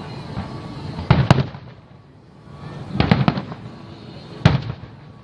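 Aerial fireworks shells bursting in a display: two bangs about a second in, a quick cluster of bangs around three seconds in, and another bang near the end.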